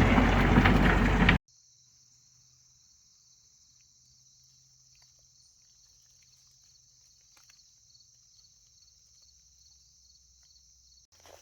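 Tracked skid steer's diesel engine running loud, stopping abruptly about a second and a half in. After that, a faint, steady, high insect trill, like crickets, with a light pulsing.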